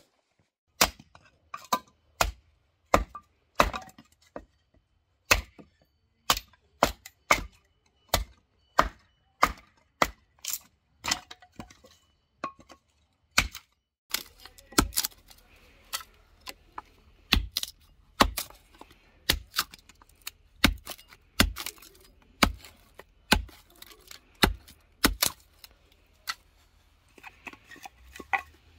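Hatchet splitting kindling on a log chopping block: a steady run of sharp chops and cracks as the blade bites into and splits thin sticks, roughly one or two strikes a second, with a short pause about halfway through.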